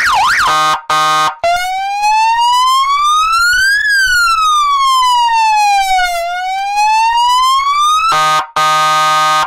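100-watt electronic vehicle siren sounding through its horn speaker, loud. It gives two short blasts of its buzzing horn tone, then a slow wail that rises, falls and rises again, then the horn tone again near the end as the tone buttons are switched.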